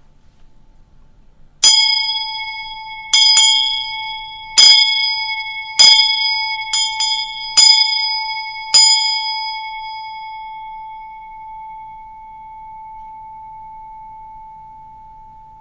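A bell struck about nine times at uneven intervals, a couple of the strikes in quick pairs, each strike bright and ringing. After the last strike the ring fades slowly over several seconds.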